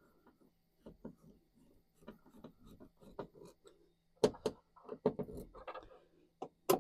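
Irregular clicks, knocks and rubbing as plastic interior trim on a car door is fitted back in place and its screws refitted by hand, with a few louder knocks about four seconds in and a sharp one near the end.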